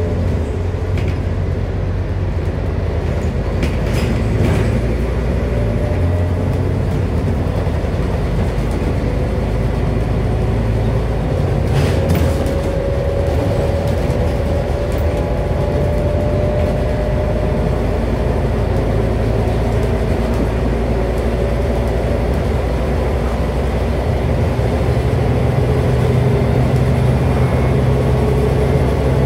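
Scania DC09 five-cylinder diesel of a Scania N230UD double-decker bus running under way, heard from inside the passenger saloon as a steady low drone with road noise. A faint whine slowly rises in pitch through the middle, and a couple of short rattles come about four and twelve seconds in.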